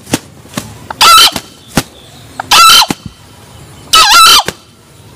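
Male green junglefowl crowing three times, each a short shrill call about a second and a half apart; the last is a little longer and broken in two.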